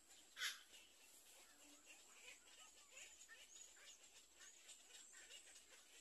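Black-crowned night heron nestling giving one short harsh squawk about half a second in, over faint scattered high chirps and a thin steady high hiss.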